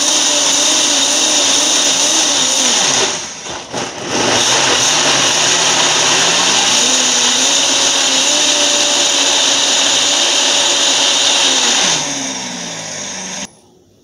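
Princess House Vida Sana countertop blender running at high speed, grinding toasted whole chiles, seeds included, with a little water into a thick paste. Its motor eases off about three seconds in and picks up again a second later, then winds down near the end and stops.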